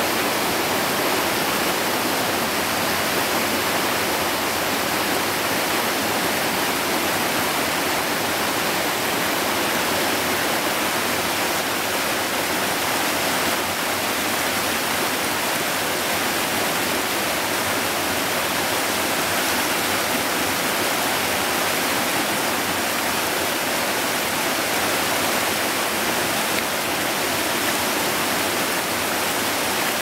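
Whitewater of a stream cascading and rushing over rocks, a steady, unbroken rush of water.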